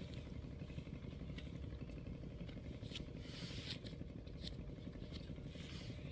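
A steady low engine-like rumble, with scattered light clicks and ticks over it.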